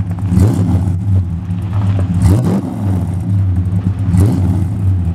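1968 Plymouth Fury III's engine running through its new custom dual exhaust, a steady rumble blipped up three times, about two seconds apart.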